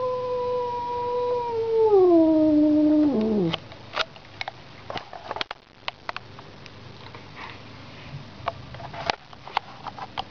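A cat's long, drawn-out yowl, the threat call of a cat squaring off with another cat through a window. It holds a steady pitch, then slides down and dies away about three and a half seconds in. After that come only a few faint short clicks.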